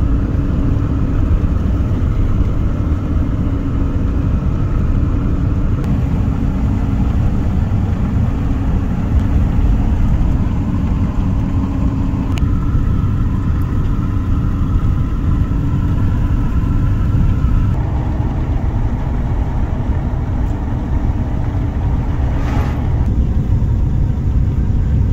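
Steady low rumble of engine and road noise inside the cab of a Chevrolet pickup truck on the move, with faint whining tones that shift a couple of times. Near the end comes a brief whoosh as an oncoming vehicle passes.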